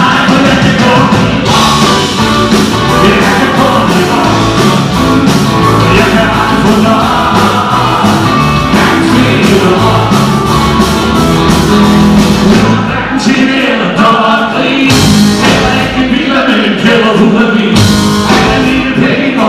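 Live rock band playing a rock-and-roll song with singing, loud and full.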